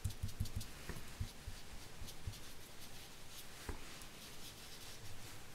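Small ink pad dabbed and rubbed onto a paper die-cut bell to colour it with ink: a quick run of soft taps through the first two seconds or so, then sparser taps and light rubbing of paper.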